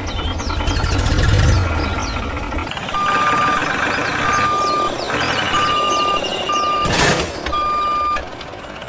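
A vehicle's reversing alarm beeping about once a second, after a low engine rumble with birds chirping over it. There is one sharp knock about seven seconds in.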